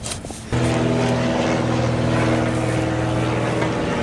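An engine running at a steady pitch, cutting in abruptly about half a second in.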